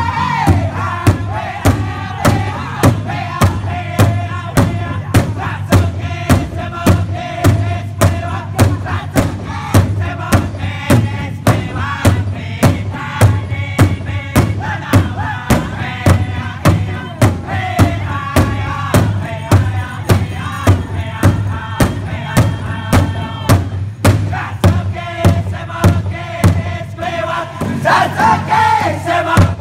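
Powwow drum group singing a sidestep song: several men strike a large hide powwow drum together in a steady beat, a little under two strikes a second, while singing in unison over it.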